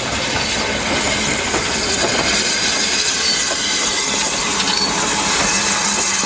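BR Standard 9F 2-10-0 steam locomotive rolling slowly past at close range: a steady hiss of steam with the clatter of its wheels on the rails.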